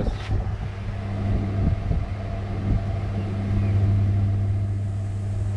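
Steady low electrical hum and fan whir from a solar inverter driving an induction cooktop under heavy load, with a stainless kettle of water rumbling as it nears a rolling boil.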